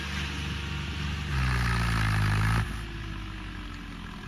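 Swaraj tractor's diesel engine running hard, revving up about a second in and dropping back sharply a little past halfway.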